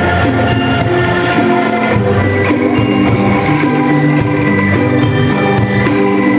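An angklung ensemble playing a tune: shaken bamboo angklung sound held, rattling pitched notes. Mallet instruments and a drum kit play along with frequent light percussive strokes.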